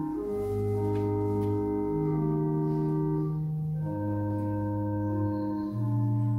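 Church organ playing slow, sustained chords, the bass note changing every couple of seconds.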